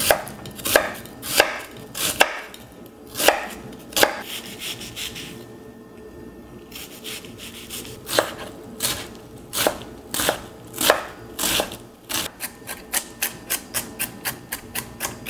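Kitchen knife chopping an onion on a wooden cutting board: spaced-out cuts at first, a short pause near the middle, then quicker, even chopping of about three strokes a second near the end.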